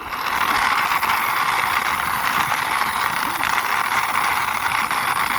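Toy police motorcycle pushed along by hand, its small plastic wheels making a steady rolling noise.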